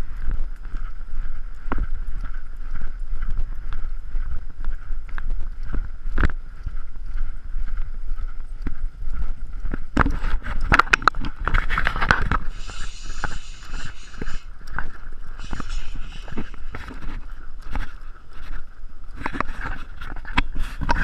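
Horses' hooves knocking irregularly on a sandy trail, heard from the saddle, under a constant low rumble and bumping from the camera riding with the horse. About ten seconds in, a louder rustling noise sets in for several seconds.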